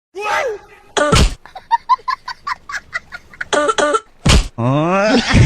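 Two loud, sharp smacks, about a second in and again a little past four seconds, amid excited voices: a quick run of short pitched syllables between them and a long falling vocal cry near the end.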